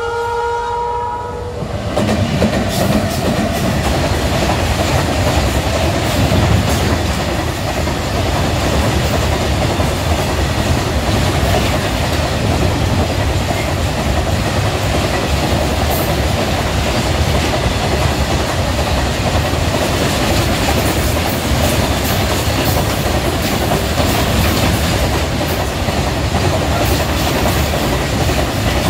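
Horn of an Indian Railways WAG-12 electric freight locomotive, cutting off within the first second. From about two seconds in, the train runs past with a steady rumble and wheel-on-rail noise.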